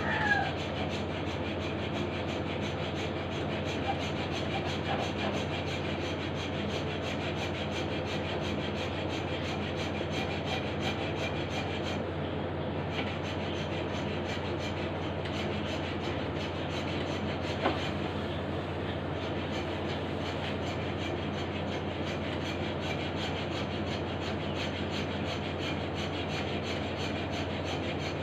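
A saw cutting steadily through a slab of dried fish, an unbroken rasping with a low hum under it.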